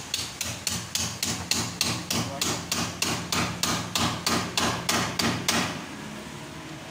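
A rapid, even series of hard knocks, about three to four a second, stopping near the end: the window glass of a Toyota HiAce sliding door being pounded to loosen it from its frame.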